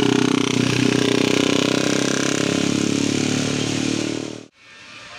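A bus's diesel engine running loud and steady close by, with a fast pulsing throb. It cuts off abruptly about four and a half seconds in, leaving a much quieter background.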